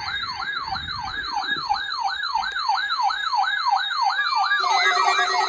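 Weather alert radio alarms going off for the weekly warning alarm test. A rapid siren-like warble sweeps up and down about four times a second. A steady tone joins about four seconds in, and a second, harsher alarm tone follows just after.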